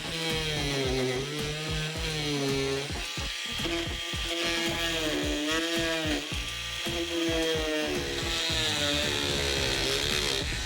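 Background music with a melody line over a bass and a steady beat.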